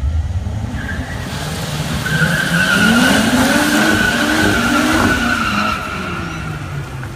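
FPV F6's turbocharged 4.0-litre inline-six revving hard, its note climbing and wavering, as the rear tyres spin in a burnout. A steady high tyre squeal starts about a second in and holds until near the end, loudest in the middle; the burnout heats the tyres for a drag launch.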